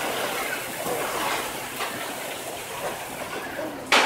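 Outdoor ambience of a busy pedestrian square: a steady wash of noise with faint voices of passers-by. Near the end a sudden loud rush of noise cuts in.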